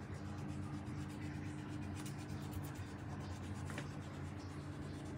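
A steady low hum with faint scratchy handling sounds and a few light clicks.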